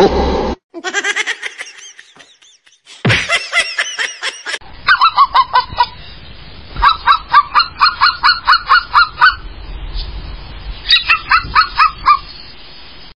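A dog, a husky, giving rapid short honking yelps at about five a second, in three runs with pauses between. Before them come two brief wavering animal cries.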